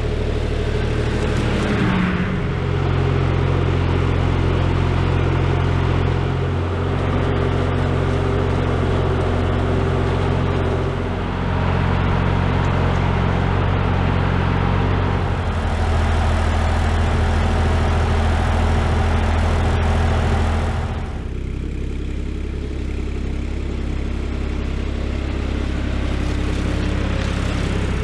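A vehicle engine running steadily, heard up close. Its pitch shifts a few times, and about three-quarters of the way through it settles to a lower, quieter hum.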